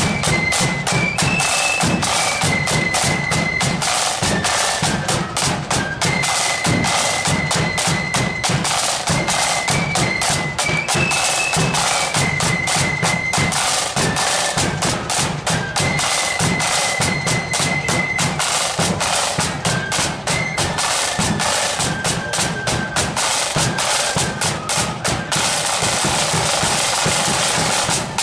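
Marching flute band playing: snare drums beating a fast, steady marching rhythm over a bass drum, with a high flute melody on top. The flutes stop a few seconds before the end while the drums carry on.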